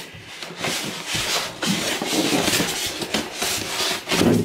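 A plastic sewing machine being worked out of its moulded foam packing insert: continuous scraping and rubbing of the machine's casing against the foam, with many small knocks and a louder knock shortly before the end.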